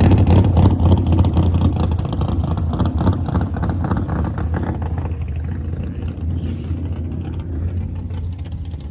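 A car engine running loud, with a steady low drone and a rough, crackly upper layer that dies down about five seconds in.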